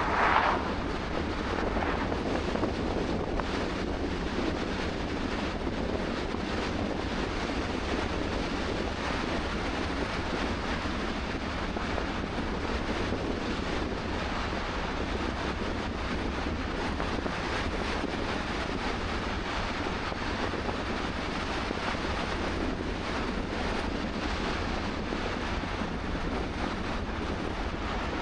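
Steady road and wind noise of a car driving at speed, with a deep wind rumble on the microphone. There is one short, louder rush right at the start.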